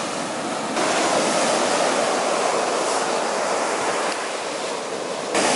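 Ocean surf breaking and washing up a sandy beach, a steady rush of noise that changes abruptly about a second in and again near the end.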